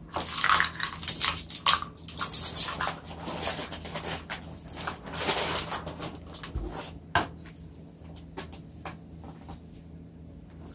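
Paper bag of sugar rustling and crinkling as it is handled, opened and tipped, loud and busy for the first six seconds or so. After that it quietens to a few light clicks and knocks as sugar goes into a plastic measuring cup.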